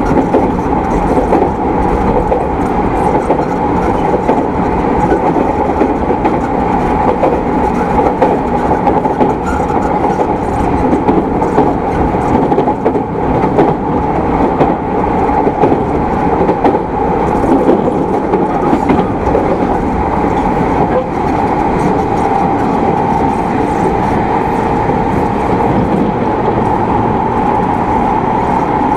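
Running sound inside a JR East E217 series electric multiple unit motor car (MoHa E216-2000, equipment-renewed) at steady speed: wheels on rail with a steady hum and some clatter from the track.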